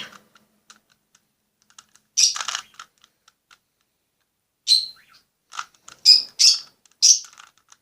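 Plastic Rubik's cube layers being turned by hand: short clicking, scraping bursts, one at a time with pauses, several in quick succession in the last few seconds.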